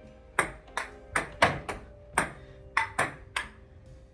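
Table tennis rally: the ball clicking sharply off paddles and the table, about nine taps in quick, uneven succession, stopping about three and a half seconds in.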